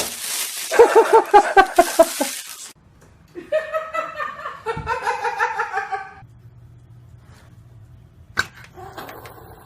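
A person laughing hard in a quick run of short bursts, over a hiss-like noise, then laughing again more softly, before it goes quiet with a single click.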